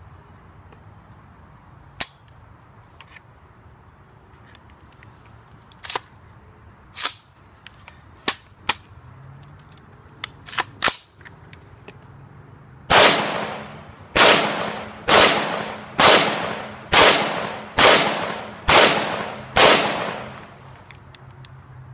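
Palmetto State Armory PTAC AR-15 rifle in 5.56/.223 fired semi-automatically: eight shots about a second apart in the second half, each ringing out and fading. Before them come a few sharp clicks and clacks.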